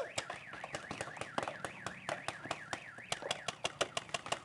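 Paintball markers firing in rapid volleys, about five or six sharp pops a second. Over the first three seconds a high warbling tone rises and falls over and over behind them.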